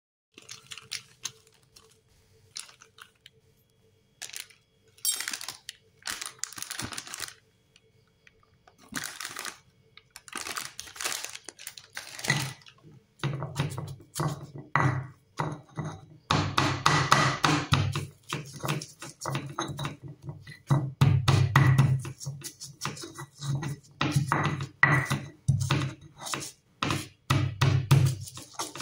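Stone pestle crushing and grinding garlic cloves and a piece of turmeric on a flat stone mortar (cobek). There are scattered knocks at first, then from about the middle on a dense run of rapid knocks and scraping strokes.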